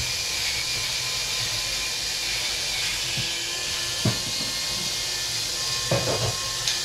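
Steady hiss from a kitchen stove and simmering soup pot. A few light knocks and clinks of jars or utensils sound about four seconds in and again near six seconds.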